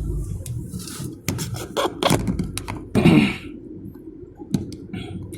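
A string of sharp clicks and knocks, with one brief pitched sound about three seconds in, as things are handled inside a car cabin, over a low steady rumble.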